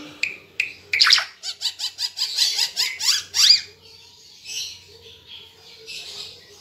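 Green figbird (Ara Timor) singing: a loud, rapid run of chattering notes with quick sweeping whistles from about a second in until past the middle, then quieter, scattered calls.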